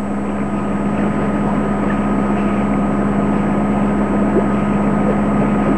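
The sailboat's inboard diesel engine running steadily while motoring under way, a constant low drone.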